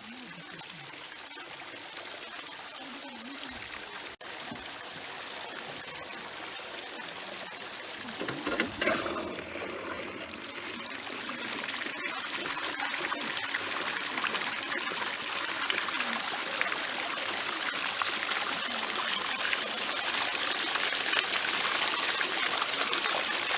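Rushing water of a waterfall or mountain stream, a steady hiss that grows gradually louder. A brief voice is heard about a third of the way in.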